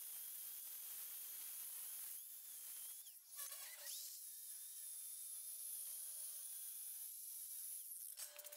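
Faint, high-pitched hiss with a thin wavering whine: the sped-up sound of a metal-cutting circular saw cutting steel plate. It breaks off briefly about three seconds in and again near the end.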